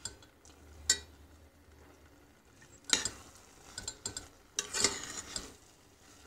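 A spoon stirring a thick lentil and bulgur mixture in a stainless steel pot, scraping and knocking against the pot. There is a stroke about a second in, another around three seconds in, and a quick run of scrapes near the end.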